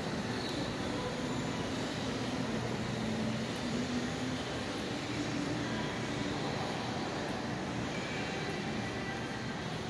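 Steady, even rush of ambient noise in a large, nearly empty shopping-mall concourse, with faint background music.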